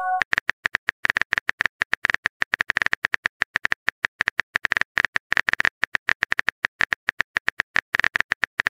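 Phone keyboard typing sound effect: a rapid, uneven run of short sharp key clicks, several a second, as the next chat message is being typed.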